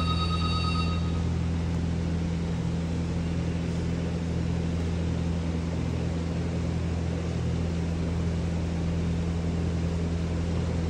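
Steady low machine hum, like a running appliance motor, with a short high electronic beep in the first second.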